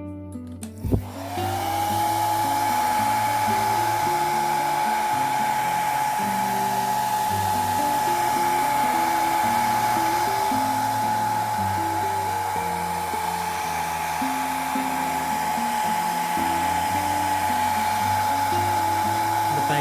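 Hair dryer switched on with a click about a second in: its motor whine rises quickly to a steady pitch, then it blows steadily, heating a phone's glass back panel to soften the adhesive. Soft guitar music plays underneath.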